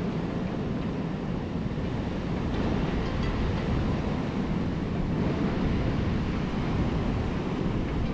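Steady rushing of wind and sea, with wind buffeting the microphone.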